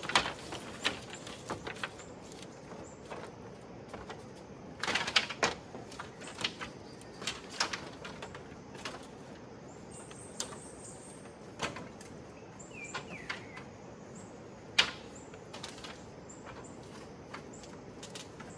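Scattered sharp clicks and knocks of something being handled, uneven in strength, over a steady outdoor hiss, with a short chirp past the middle.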